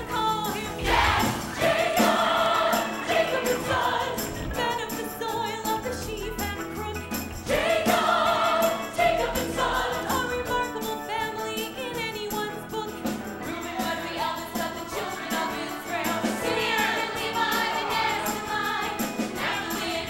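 Stage musical's ensemble cast singing together in chorus, with instrumental accompaniment.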